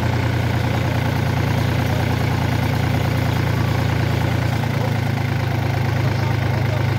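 Sonalika tractor's diesel engine running steadily, its rear wheels sunk in loose soil with a loaded trailer behind.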